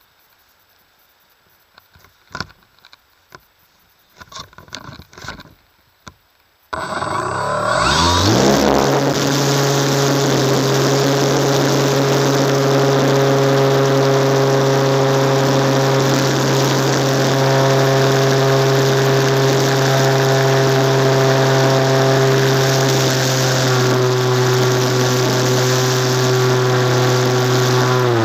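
A few light clicks and knocks, then about seven seconds in the Fun Cub RC plane's electric motor and propeller spin up with a rising whine. They settle into a loud, steady drone under flight power for the rest.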